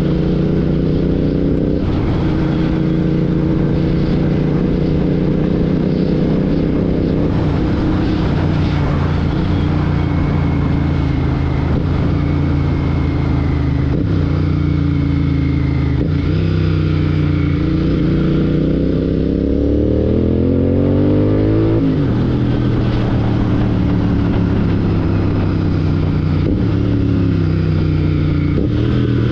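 Royal Enfield Continental GT 650's 648 cc parallel-twin engine running through a Red Rooster Performance aftermarket exhaust while riding. It holds a steady cruise, then rises in pitch under acceleration for several seconds, drops sharply at a gear change about 22 seconds in, and climbs again near the end.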